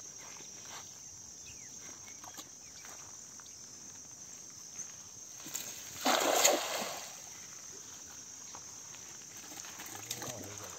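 Insects chirring steadily on one high note. About six seconds in, a loud rushing noise lasting about a second stands out, like a splash.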